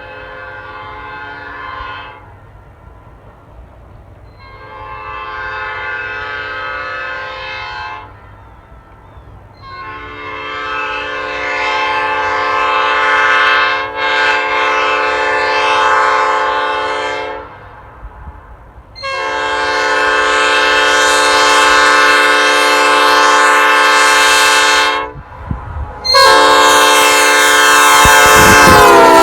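Nathan Airchime P5A five-chime locomotive air horn, ex-Norfolk Southern, with a #4A bell in place of the usual #4 for a slightly higher chord. It sounds a series of long blasts of a few seconds each, five in all counting one that ends about two seconds in, each louder than the one before.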